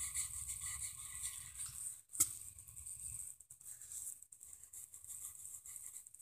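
Graphite pencil shading on paper: quick, light scratching strokes, with one sharp tap about two seconds in.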